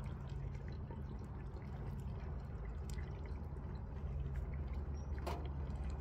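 Hot oil bubbling and crackling in a propane turkey fryer pot with the fried turkey still in it, over a low steady rumble. A single sharp click comes about five seconds in.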